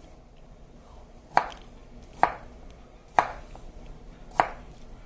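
Kitchen knife chopping a carrot into chunks on a wooden cutting board: four sharp chops, the first about a second and a half in, then roughly one a second.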